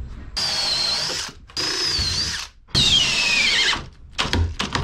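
Cordless drill run in three bursts of about a second each, its bit in the boat's wooden timbers. The motor's whine sinks in pitch through the last burst as it slows. A few light knocks follow near the end.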